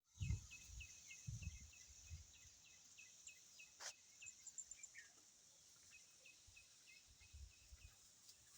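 Faint outdoor nature ambience: a steady high insect hiss, with a short high chirp repeating about three times a second that pauses partway and then resumes. There are faint low rumbles near the start and again near the end, and a single click midway.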